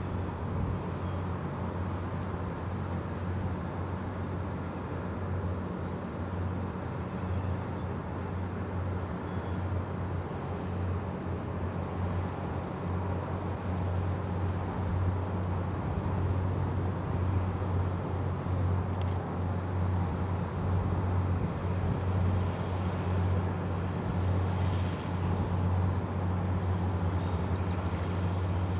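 Tugboat diesel engine running with a steady low hum, growing somewhat louder about halfway through.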